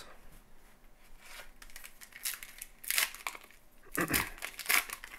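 A trading-card pack wrapper being torn open by hand: crinkling and several short sharp rips, the loudest about four seconds in.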